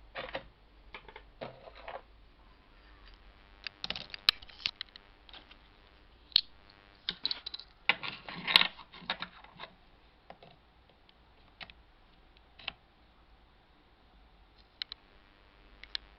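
Irregular small clicks and knocks of plastic and metal objects being handled on a desk beside a laptop, with a busier run of clicks and rustling about eight to nine seconds in and a few scattered ticks near the end.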